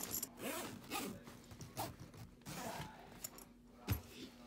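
Several short scraping and rustling handling sounds, like a zip or bag being worked, with a sharp knock about four seconds in and a faint steady hum underneath.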